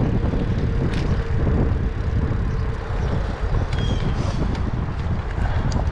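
Wind rumbling on the microphone of a moving bicycle, a steady low rush, with a few light clicks.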